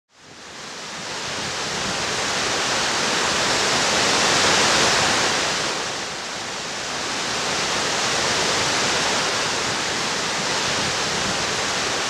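Steady rush of water pouring over a waterfall, fading in from silence at the start and dipping briefly about halfway through.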